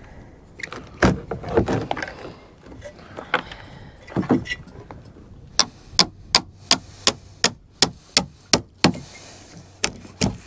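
Hammer striking a chisel driven into rotten timber, cutting away decayed wood. Irregular knocks and scraping for the first few seconds, then a steady run of sharp blows about three a second, with a short pause near the end.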